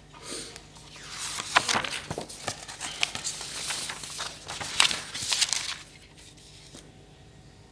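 Loose sheets of paper rustling and crinkling as they are handled and turned over, with sharp crackles, for about five seconds.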